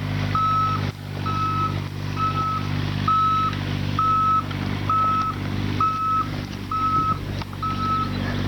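Kubota excavator's travel alarm beeping steadily, one high single-pitched beep just over once a second, over the steady running of its diesel engine as the machine tracks along.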